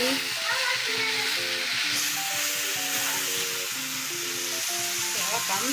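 Green beans frying with a steady sizzle in a nonstick wok as they are stirred with a spatula. Background music with a simple stepping melody plays throughout.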